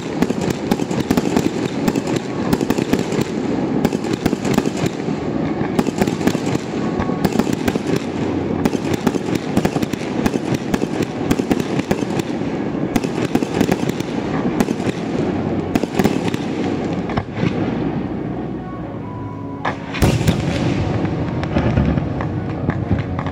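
Aerial fireworks display: a dense, continuous crackling of many bursts and pops. It thins out about 17 seconds in, then a loud boom comes about 20 seconds in and the crackling picks up again.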